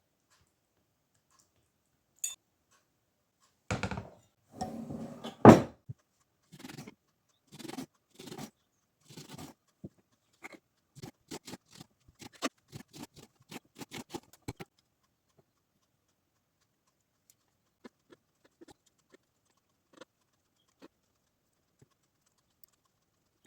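A run of knocks, clatter and clicks from things being handled and set down, presumably kitchen utensils or containers. The loudest knock comes about five seconds in, and the clicks come thick and fast before stopping; a few faint ticks follow.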